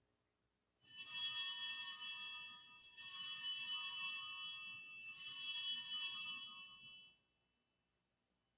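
Altar bells (Sanctus bells) rung three times at the elevation of the chalice after the consecration, three high jingling peals of about two seconds each.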